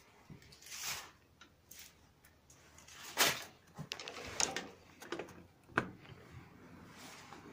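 Scattered clicks, knocks and rustles of someone handling the IMT 533 tractor's controls at the driver's seat. The sharpest knock comes about three seconds in.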